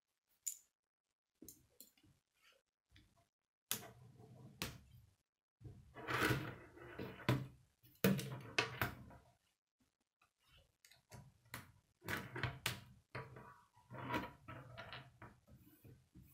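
Plastic K'nex rods and connectors clicking and rattling as a large K'nex model is handled and turned around, with sharp knocks as it touches the wooden tabletop.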